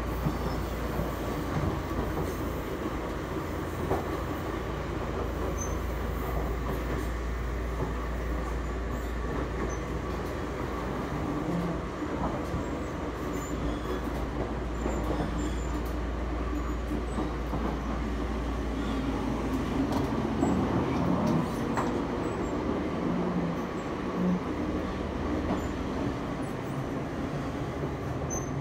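Running noise heard inside the passenger saloon of a Toyama Chiho Railway 20020-series electric train, the former Seibu 10000-series New Red Arrow, moving at speed: a steady low drone of traction motors and wheels on rail, with scattered clicks and a little wheel squeal. The bogies and motors were reused from the retired original Red Arrow, which makes the motor noise and sway unusually strong for this train.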